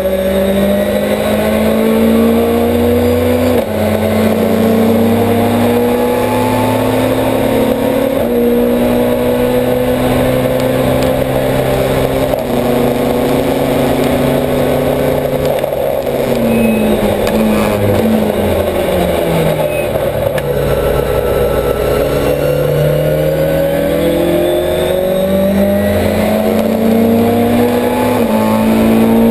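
Millington-engined Ford Escort race car's four-cylinder engine, heard from inside the cockpit, pulling hard through the gears. Its pitch climbs and drops at each upshift, falls away through the downshifts in the middle, and climbs again as the car accelerates back up through the gears near the end.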